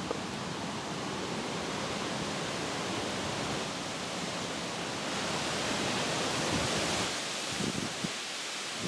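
Steady rush of running water, an even noise without pitch that swells slightly about two-thirds of the way through.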